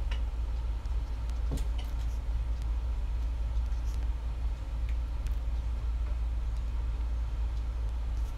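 Steady low rumble in the background, with a few faint clicks scattered through it.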